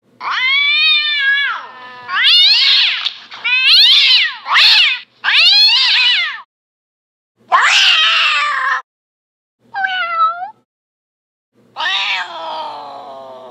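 A run of stock cat meow sound effects, about seven separate meows played one after another, each cut off cleanly into silence. A short, higher meow comes near the middle, and a long, drawn-out meow fades away at the end.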